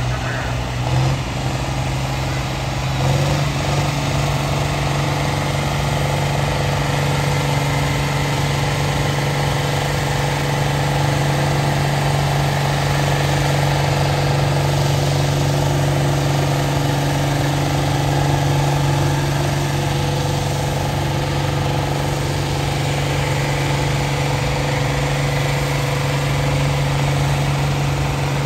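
Farmall tractor engine pulling a tractor-pull sled, revving up about three seconds in and then running steadily under heavy load.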